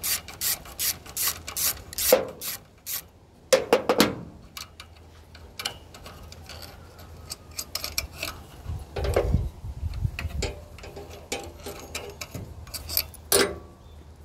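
Ratchet wrench clicking in quick strokes, about three clicks a second, for the first two seconds, then scattered knocks and clinks of hand tools against metal generator parts.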